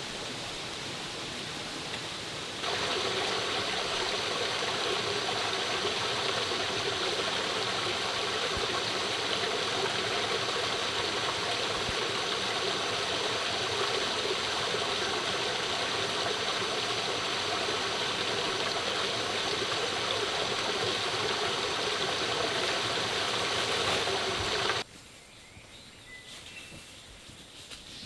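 Steady rush of running water. It gets louder about two and a half seconds in and cuts off abruptly near the end.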